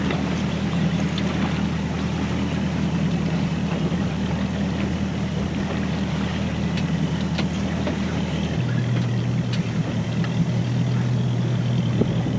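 Outboard motor running at a steady low hum over wash and wind noise. Its note changes abruptly about eight and a half seconds in.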